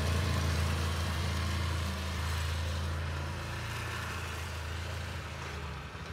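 Snowmobile engine running as it drives past below and pulls away, its low steady hum slowly fading.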